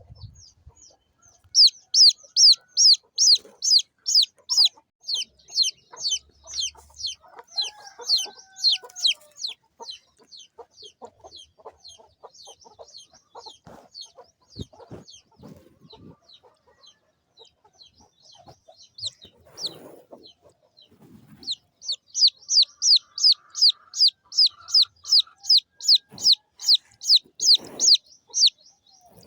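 Baby chicks peeping: a fast run of high, downward-sliding peeps, about four a second. The peeps are loud at first, thin out and fade through the middle, then come back loud and steady near the end.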